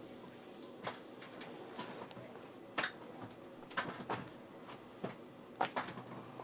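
Light, scattered clicks and taps of a drawing compass being handled and its point and pencil set down on paper, about one every second, some in quick pairs.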